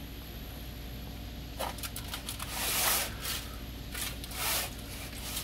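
Foil-lined baking tray being slid out along a metal oven rack: several short bursts of scraping and aluminium-foil crinkling, over a steady low hum.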